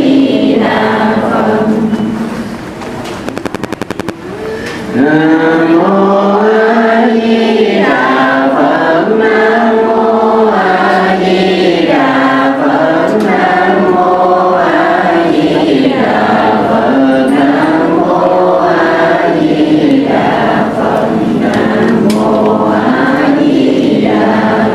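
Vietnamese Buddhist chanting (niệm Phật): many voices recite together in unison in a slow melodic chant with long held notes. The chant drops away briefly about two seconds in, with a quick run of clicks, and resumes loud about five seconds in.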